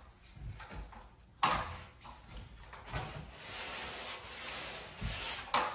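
Drywall pole sander's round pad with 180–220 grit sandpaper rubbing over freshly taped joints, a steady scratchy hiss that starts suddenly about a second and a half in. This is light sanding to knock off clumps between taping and the first coat of mud.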